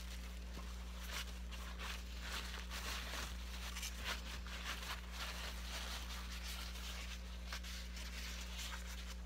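Paper towel rustling and crinkling as it is rolled and folded around a fish, over a steady low hum.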